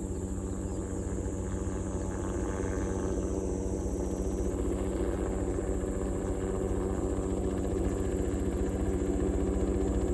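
Helicopter running with a fast, even beat of rotor blades over a steady engine hum, growing slowly louder.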